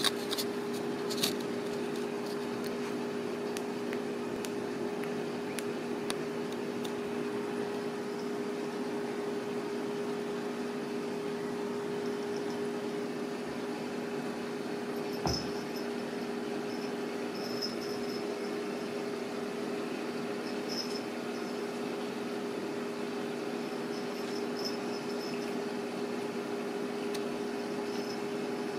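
Steady low mechanical hum made of two low tones over a faint hiss. There are a few light clicks near the start and one soft thump about halfway through.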